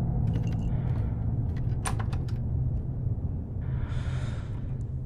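Film soundtrack ambience: a steady low rumble with scattered faint clicks, and a short hiss about three and a half seconds in.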